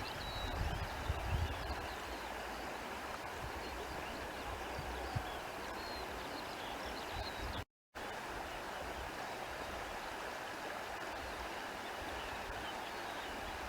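Countryside ambience: a steady hiss of running water like a stream, with low rumbling gusts in the first two seconds and faint high chirps scattered through. It drops to silence for a split second just past halfway.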